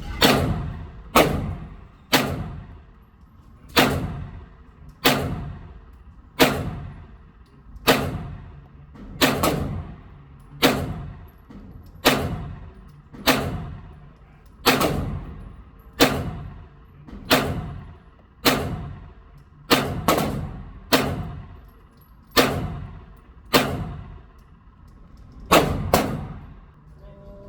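Dan Wesson 9mm 1911-style pistol fired at a steady pace, about twenty shots roughly a second or so apart. Each sharp crack rings out and fades in the reverberation of an indoor range.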